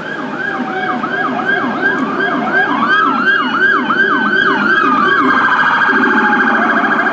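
Electronic siren of a toy police car: quick falling yelps about three a second, overlaid by a slower rising and falling wail, switching about five seconds in to a fast high-low warble.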